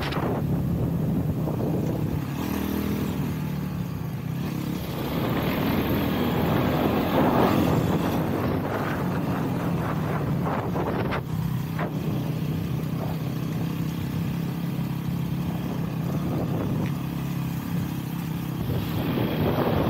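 Honda CRF-X enduro motorcycle's single-cylinder four-stroke engine running steadily on a trail ride, with a couple of swells in revs and noise. Two sharp knocks about eleven and twelve seconds in.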